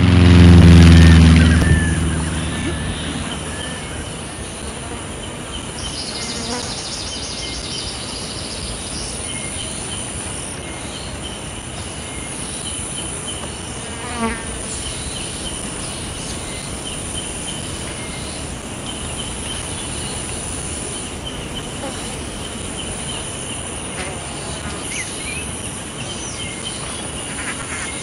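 A propeller plane's engine passing loudly, its pitch falling as it fades over the first two seconds. Then a steady chorus of insects chirring, with a few faint chirps and a single click about fourteen seconds in.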